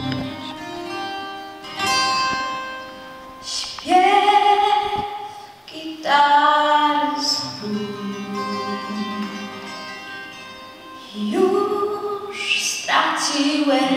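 A girl singing a song solo into a microphone over an instrumental accompaniment, with several long held notes.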